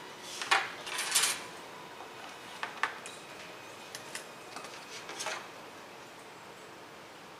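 Light clicks and brief scrapes of small hard objects being handled on a workbench, in several scattered clusters, loudest about a second in.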